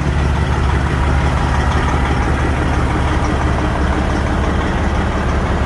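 Heavy semi-truck diesel engine idling steadily, a low, even drone.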